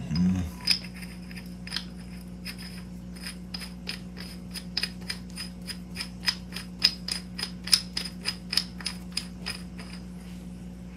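Metal bottle adapter being twisted by hand onto the threaded neck of a carbon fiber air bottle: a run of small sharp clicks, sparse at first, then about three or four a second, over a steady low hum.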